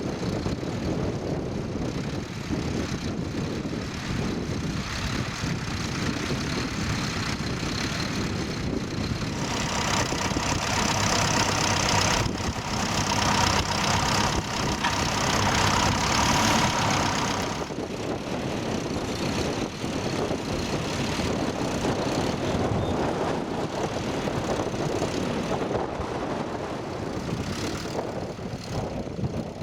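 Tractor engine running steadily under ploughing load. It grows louder and brighter for about eight seconds in the middle, then settles back.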